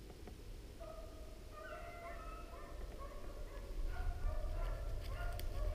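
Rabbit hounds baying, a run of repeated drawn-out calls at different pitches overlapping from about a second in: typical of hounds giving tongue on a rabbit's trail.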